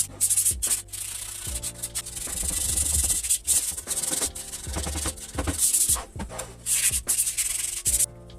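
Irregular rasping hand-sanding or scrubbing strokes, over background music with sustained low notes.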